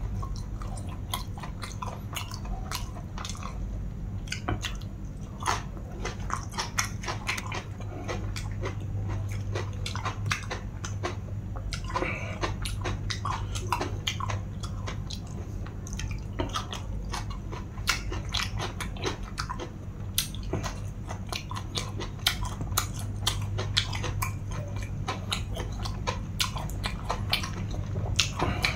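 Close-miked chewing and biting of a spicy long-bean salad with raw green vegetables, with many crisp crunches and wet mouth clicks in no set rhythm, over a steady low hum.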